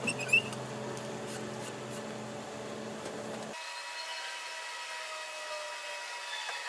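Power drill running steadily as it bores a hole into a timber beam to rough out a mortise, with a sharp click just after the start. The motor stops abruptly about three and a half seconds in.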